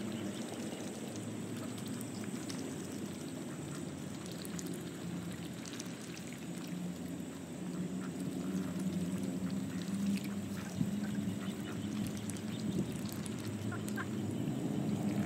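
Mallard ducks feeding in shallow, duckweed-covered water: soft splashing and dabbling with scattered small clicks over a steady low background noise, growing a little louder near the end.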